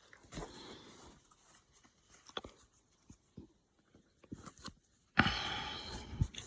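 A trading-card pack wrapper being handled and torn open: scattered small crinkles and clicks, then a louder rip of the wrapper lasting about a second near the end.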